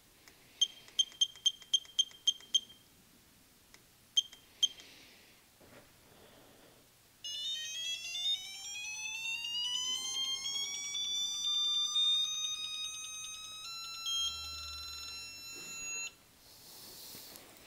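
Icon 1/2-inch digital torque wrench beeping: a quick run of about nine button beeps as the target torque is set, and two more a couple of seconds later. Then, as the wrench is pulled, its alert tone rises slowly in pitch as the torque builds. It holds one pitch at about the target torque and cuts off suddenly.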